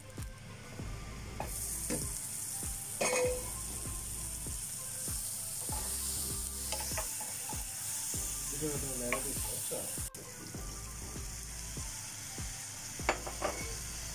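Onion-tomato masala sizzling in a nonstick frying pan while a wooden spatula stirs and scrapes it, with a few knocks of the spatula against the pan. The sizzle comes in about a second and a half in and breaks off briefly about ten seconds in.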